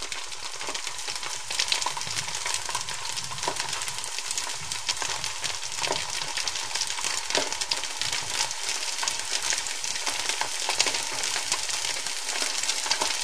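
Butter sizzling as it melts in a hot frying pan: a steady hiss dotted with many small crackling pops.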